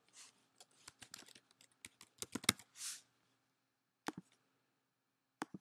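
Typing a word on a computer keyboard: a quick, irregular run of light keystrokes, followed by two single clicks later on.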